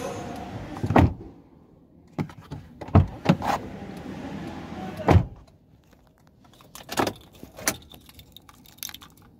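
Scattered knocks and clicks of handling inside a car, with heavier thuds about one, three and five seconds in and two more near the end; no alarm siren sounds.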